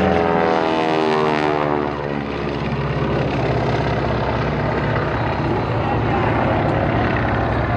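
Aircraft flying past: its engine note drops in pitch over the first two seconds as it passes, then settles into a steady, fainter engine noise.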